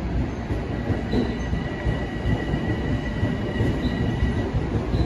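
Electric commuter train running through the station with a steady low rumble, and a thin, steady high squeal from the wheels from about a second in until shortly before the end.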